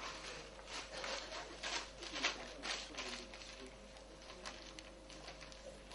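Soft rustling and scraping noises: a quick run of short strokes, thickest in the first three seconds, then sparser, with faint voices in the background.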